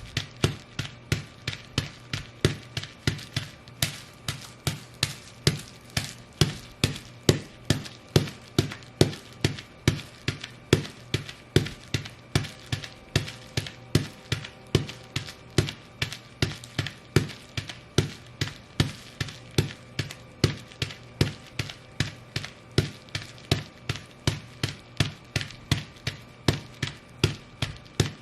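Ugg boots stomping steadily on bubble wrap, crushing it. The sharp stomps come evenly at about two a second.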